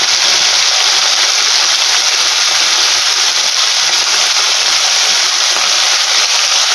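Small whole fish frying in hot mustard oil in a kadhai: a loud, steady sizzle.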